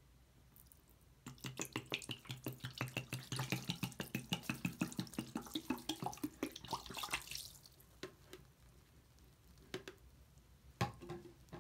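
Mouthwash glugging out of an upturned plastic bottle and splashing onto a sponge in a sink: a fast, even run of glugs that starts about a second in and stops after about six seconds. A couple of single knocks follow near the end.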